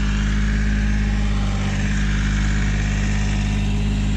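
Engine running steadily at idle, an even low hum.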